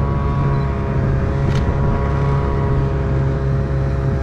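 Snowmobile engine running at a steady speed while riding over snow, with a brief sharp click about one and a half seconds in.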